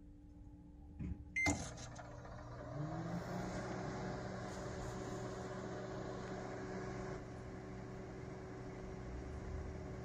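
GE Spacemaker II microwave oven starting a defrost cycle: two clicks and a short beep about a second and a half in, then its hum rises in pitch around three seconds in and settles into a steady drone.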